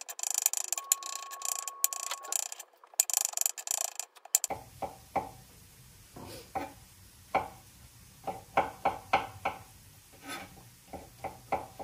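Kitchen knife slicing button mushrooms on a wooden cutting board: rapid ticking strokes for the first few seconds, then after a short pause separate knocks of the blade on the board in quick runs.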